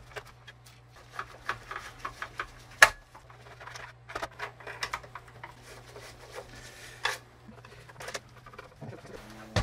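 Screws being driven back into the plastic case of a cassette radio: a run of small clicks, scrapes and taps from the screwdriver and hands on the plastic, with a sharper knock about 3 seconds in and another about 7 seconds in.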